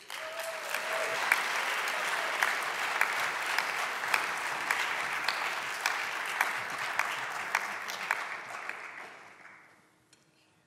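Audience applauding, with sharp individual claps standing out, dying away over the last couple of seconds.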